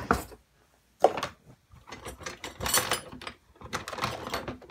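Irregular clinks and scraping of dishes and cutlery being handled in a kitchen sink, mixed with the rubbing of a handheld phone against clothing. There is a short near-silent pause about half a second in.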